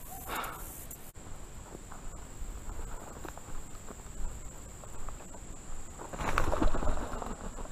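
A steady high-pitched insect drone over low wind rumble on the camera's microphone as it moves along a field edge. There is a louder burst of noise about six seconds in.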